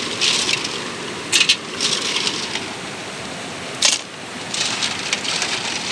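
Small freshwater snail shells clattering against each other and a metal pot as a hand stirs and rinses them in water: several bursts of clicking, with one sharp click about two-thirds of the way through, over the steady rush of a stream.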